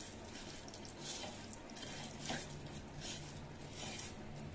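Hand mixing small anchovies with a wet spice paste in a bowl: faint, irregular wet squishing and rubbing.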